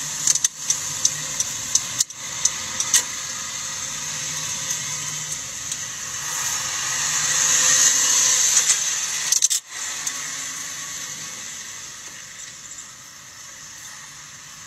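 Road and engine noise inside a moving Honda car, with a run of light clicks during the first three seconds. The noise swells about halfway through as the car picks up speed, drops out briefly, then eases off.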